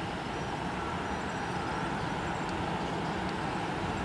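Airbus A320's twin jet engines at taxi power as the airliner rolls past: a steady rumble with a faint high whine above it.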